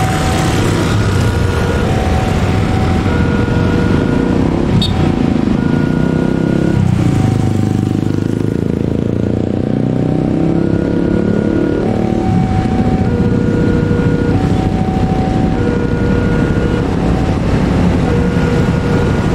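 Railway level-crossing alarm repeating short electronic tones at three alternating pitches, over the low rumble of a diesel locomotive creeping up to the crossing. Motorcycle engines rev and pass close by a few seconds in and again about halfway through.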